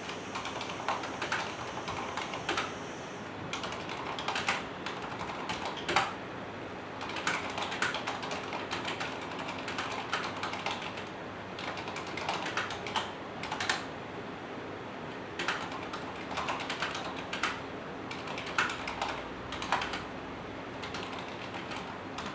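Typing on a Corsair K70 MK.2 mechanical keyboard with Cherry MX Silent switches: a steady patter of soft key presses, with a louder clack now and then. Heard through a camera's built-in microphone, so the keys sound a little distant.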